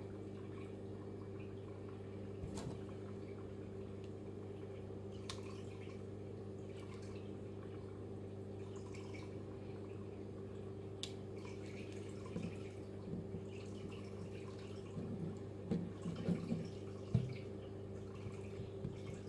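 Small clicks and taps of fingers working a plywood model-kit part, a few scattered at first and busier in the last several seconds, over a steady low hum.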